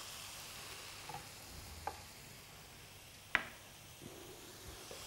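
Karahi frying in oil in a wok on a gas burner, a faint steady sizzle. A few light clicks and one sharper knock a little after three seconds in.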